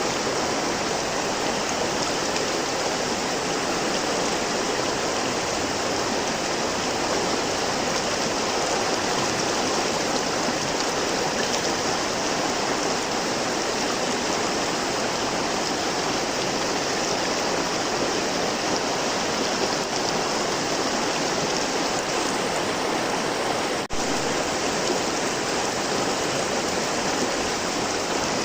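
River water flowing in a steady, even rush, with a momentary dip in level near the end.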